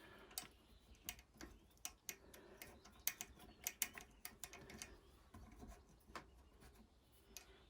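Faint, irregular small metal clicks and taps as the front disc brake caliper is slid over the rotor and fitted back onto its mount.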